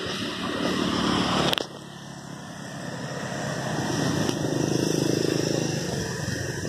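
A car drives past, its sound building and then cutting off abruptly about one and a half seconds in. A motor scooter then approaches and passes, its engine hum rising to a peak around five seconds in and fading away.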